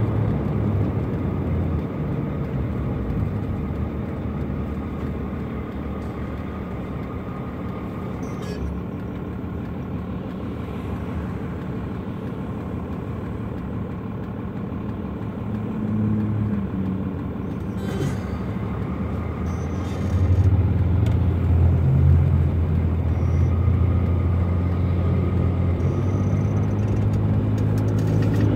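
12-valve Cummins 5.9 L inline-six diesel running, heard from inside the pickup's cab while driving. Its drone grows louder about two-thirds of the way in as the engine pulls harder under load.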